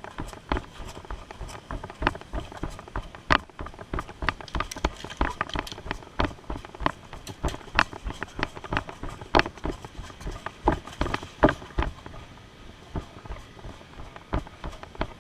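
Footsteps of a person moving quickly on foot, with irregular sharp knocks and clicks, several a second.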